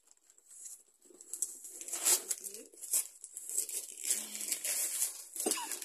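Christmas wrapping paper crinkling and tearing as a present is unwrapped by hand, starting about a second in and going on as quick, irregular rustles.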